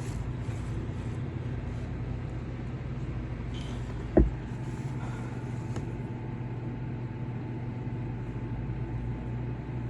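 Steady low hum or rumble, with one short knock about four seconds in.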